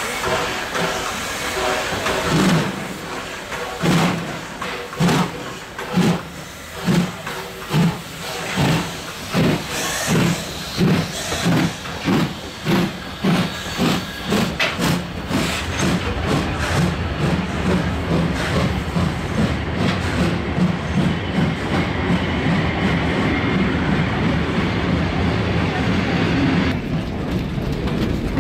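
Hr1 'Ukko-Pekka' steam locomotive pulling away: its exhaust chuffs start slowly and quicken steadily, the locomotive getting under way, until they run together into a continuous rush of steam and running noise. Near the end this gives way to a duller, steady running sound from inside a coach.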